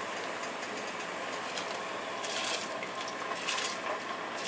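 Soaked basmati rice tipped from a steel bowl into a pot of boiling water: a steady hiss of the boiling water, with the grains splashing in as a few short rushes from about two seconds in.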